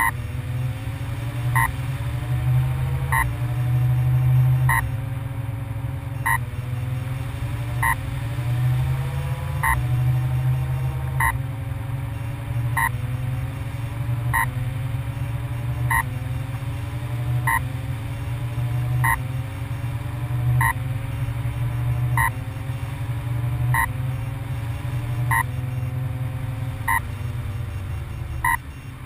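Brushless motor (3536, 1400kv) beeping through its 60A ESC about every one and a half seconds, the warning that the plane has lost the radio signal from a transmitter with a dead battery. Between the beeps a whine of several pitches rises and drops back at each beep, over a steady low rumble.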